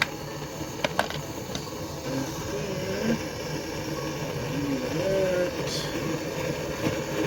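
Steady hiss of a butane candle-lighter flame heating brass and silver in a crucible, with two sharp clicks about a second apart near the start and faint voice-like sounds in the middle.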